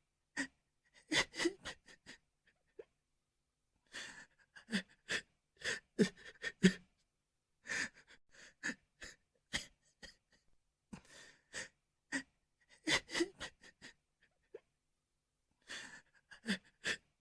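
A person sobbing: bouts of sharp, gasping catches of breath and short whimpers, coming in clusters every few seconds with brief pauses between.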